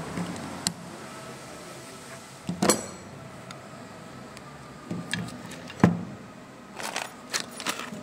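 Metal brake parts clinking as a rear drum brake shoe and its handbrake lever are handled and set down: a few separate sharp metallic clinks, one with a brief ringing about three seconds in, a louder knock near six seconds, and a few quicker clicks near the end.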